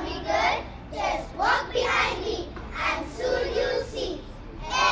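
A chorus of young children reciting a poem in unison, chanting it in short rhythmic phrases with brief pauses between lines.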